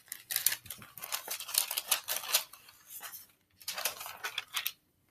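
Thin clear plastic bag crinkling and rustling as a model kit's decal sheet is pulled out of it, in two stretches with a short lull about three seconds in.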